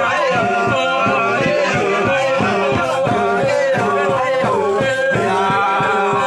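A group of voices singing a traditional Papuan chant together, with many voices overlapping over a steady rhythmic pulse.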